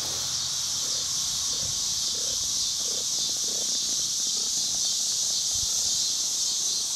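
Steady, high-pitched chorus of summer insects.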